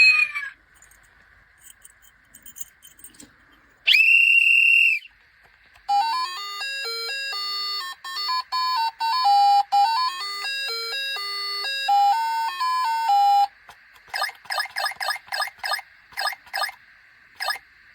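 Electronic sound toys: a single steady beep about 4 s in, then a simple tinny melody of single notes from a music chip for about seven seconds, then a quick series of about a dozen short chirping beeps near the end.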